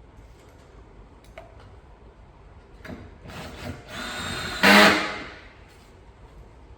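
A hard plastic Milwaukee Packout toolbox scraping into place on its rack mount. It ends in one loud clunk about three quarters of the way through, with a few light knocks before.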